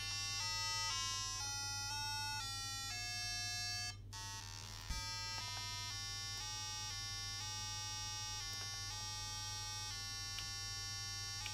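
Arduino tone output through a small sounder: a buzzy square-wave tone that jumps between pitches several times a second. There is a brief break about four seconds in, then it resumes. A steady low hum runs underneath.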